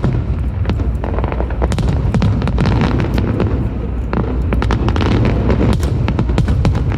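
A fireworks barrage: many quick crackling pops and bangs, several a second and overlapping, over a continuous low rumble of booming shells.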